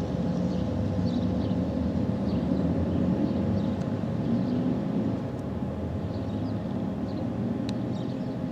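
Darley STH-10 outdoor warning siren sounding a steady tone over a dense rumble. The sound drops a little in level about five seconds in.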